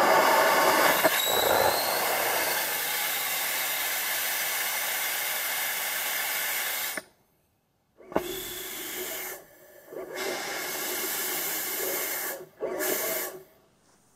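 Pressurised gas hissing steadily through an amateur ethanol and gaseous-oxygen rocket engine's injector and nozzle without lighting, so it gives no thrust. The hiss cuts off suddenly about seven seconds in, then returns as a few shorter blasts with brief gaps and stops near the end.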